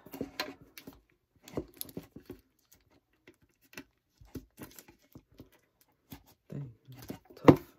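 Fingers picking and scratching at the plastic shrink-wrap on a metal Pokémon card tin: irregular small taps and crinkles, with one louder knock against the tin near the end.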